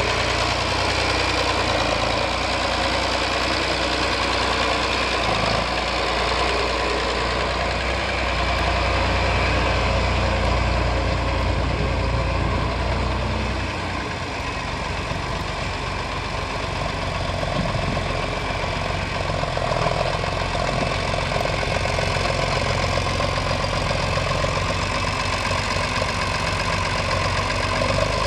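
John Deere 4020 farm tractor engine running steadily at idle, its low note shifting about halfway through.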